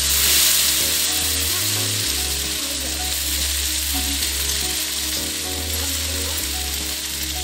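Chopped okra and onion frying in oil in a steel kadhai, sizzling steadily while a slotted spatula stirs and scrapes it around the pan. The okra is being cooked until its sliminess breaks down.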